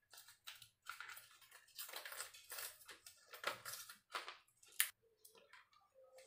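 Plastic blister pack and its cardboard backing card crinkling and crackling in irregular bursts as a mascara tube is forced out of it, with one sharp click about three quarters of the way through.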